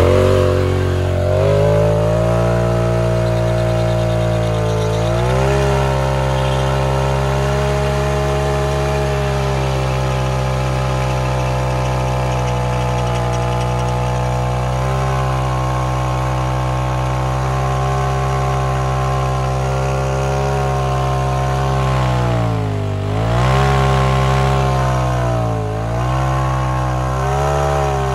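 Polaris RZR Turbo's turbocharged engine held at high, steady revs during a burnout, spinning the rear tires to smoke. Near the end the revs drop and climb back a few times.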